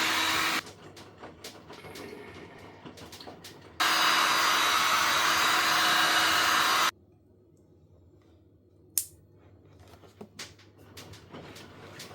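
Heat gun blowing with a steady whine as it warms the butyl sealant around a headlight lens. It cuts off within the first second, runs again for about three seconds, then stops. In between and afterwards come light clicks and knocks of the plastic headlight being handled, with one sharp click about nine seconds in.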